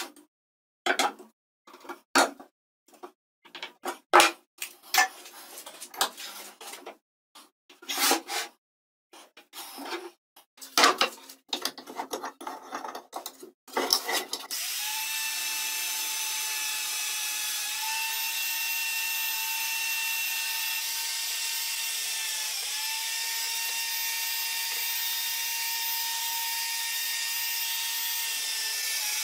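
Short knocks and clatters of a steel ruler, pencil and plywood workpiece being handled on a wooden bench. About halfway through, a bench drill press motor starts and runs with a steady whine, its pitch dipping slightly twice as the twist bit drills into the plywood.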